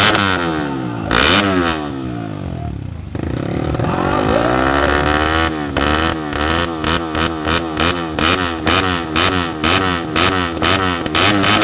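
Race-tuned Yamaha WR dirt bike engine being revved on the stand: a sharp rev near the start, a slower climb in the middle, then quick throttle blips about twice a second.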